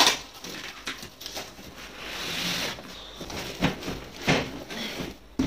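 Packing tape ripping and a cardboard shipping box being torn open. There is a loud crackle at the start, a second of tearing about two seconds in, and a few short knocks and rustles of cardboard after that.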